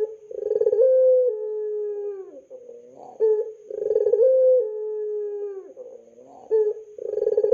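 Domestic pigeon cooing: a repeated phrase, each a rough rolling start followed by a long held low note that drops at its end, coming about every three and a half seconds. A third phrase begins near the end.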